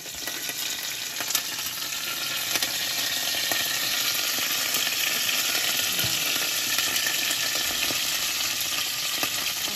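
Freshly washed curry leaves in hot oil with mustard seeds, sizzling and crackling with many small pops, the oil spitting against a glass lid. The sizzle swells over the first second or two and then holds steady; the water left on the washed leaves is what makes the oil splatter.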